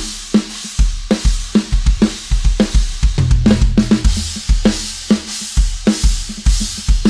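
Drum kit playing a steady rock beat: kick drum and snare hits under continuous cymbal and hi-hat wash, with a low held note a little past three seconds in.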